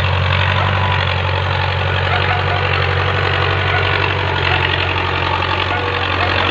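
Tractor engine running steadily while ploughing, a loud, even low drone.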